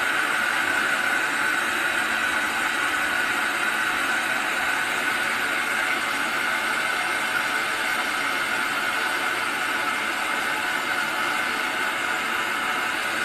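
Handheld gas torch burning with a steady hiss, its flame held on a copper air-conditioner refrigerant tube while it is brazed.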